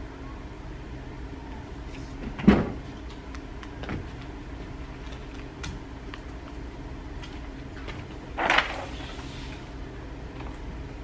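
Handling noises at a paper-covered projector screen: one loud thump about two and a half seconds in, a fainter knock a second and a half later, and a short rustle of paper being smoothed near the end, over a steady low room hum.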